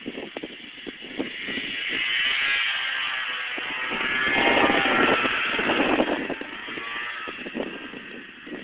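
Snowmobile engine revving as the sled carves across the snow, its pitch sliding up and down; it grows louder from about two seconds in, peaks around five seconds and fades away. Wind buffets the microphone at the start and near the end.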